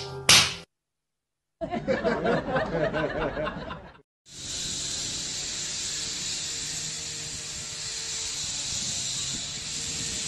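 Guitar music stops under a second in. After a short gap comes about two seconds of laughter, which cuts off. A steady hiss then runs through the rest.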